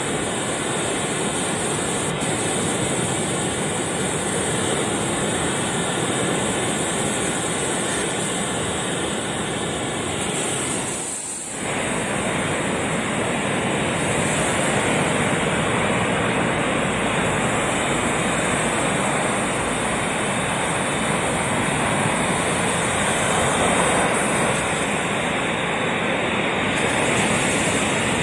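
Ocean surf breaking and washing up on a sandy beach, a steady rush of waves that dips briefly about eleven seconds in.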